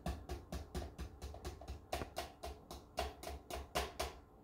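Quick, rhythmic knocks, about five a second, with a short break about two seconds in: a measuring cup of packed flour being tapped to knock the flour out into a blender jar.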